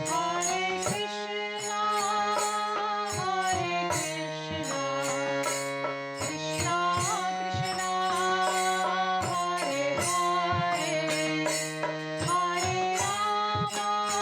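Background instrumental music: a held, wavering melody over regular drum strokes.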